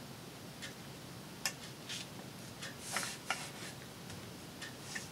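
Paper and card being handled: scattered light taps and clicks, the sharpest about one and a half seconds in, with a brief rustle about three seconds in.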